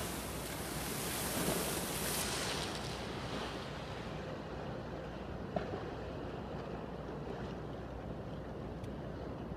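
Storm-driven waves surging and splashing against a seawall, with wind buffeting the microphone. The hiss of the splash is loudest about a second and a half in and dies away within a few seconds, leaving a steady low rumble.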